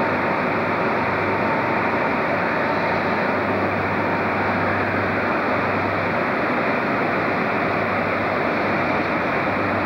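InterCity 125 (HST) diesel power car pulling a train out along the platform, a steady engine rumble with a low hum that neither rises nor falls.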